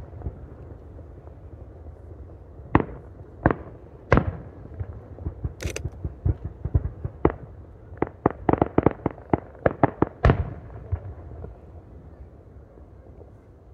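Aerial firework shells bursting: a few single booms, a brief high hiss, then a rapid string of sharp reports, several a second, ending in one loud bang, followed by a fading rumble.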